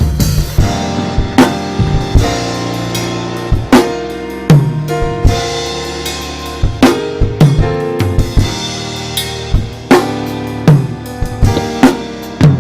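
Band music: a drum kit playing kick, snare and cymbal hits over sustained chords.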